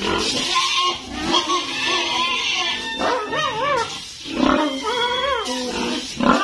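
Animal cries: a run of drawn-out, wavering calls that rise and fall in pitch, with short pauses between them.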